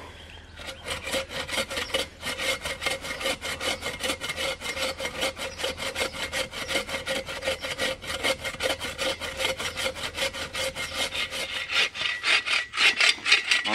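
Bow saw cutting through a log by hand in rapid, even back-and-forth strokes, about four or five rasping strokes a second, a little louder near the end.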